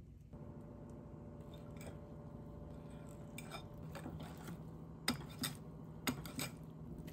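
Wire whisk stirring thick cocoa batter in a ceramic bowl, its wires clinking and knocking against the side of the bowl, with the sharpest knocks about five and six seconds in.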